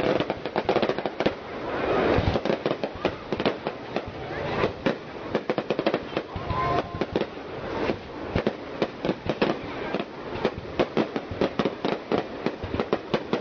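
Aerial fireworks going off in a close, continuous barrage: a rapid, uneven run of bangs as rising comets and star shells burst overhead.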